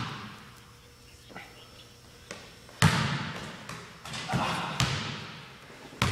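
Basketball bouncing on a gym floor: a few separate thuds, each echoing around the hall, the loudest about three seconds in and a couple more around the dunk.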